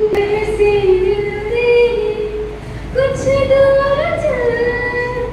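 A girl singing solo into a microphone, unaccompanied, holding long notes. About three seconds in, the singing breaks off and a second girl's voice takes over with a new held phrase.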